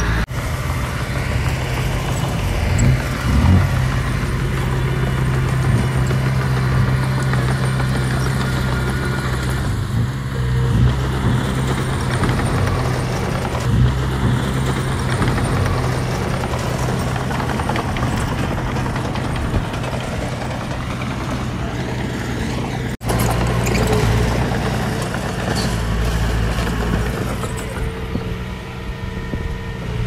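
Diesel engine of heavy earthmoving machinery, a bulldozer or dump truck, running steadily with a deep drone. The sound breaks off briefly about three-quarters of the way through.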